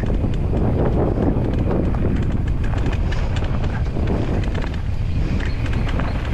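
Mountain bike rolling fast downhill over rough, rocky trail: steady tyre rumble with an irregular clatter of knocks and rattles from the bike, under heavy wind noise on the microphone.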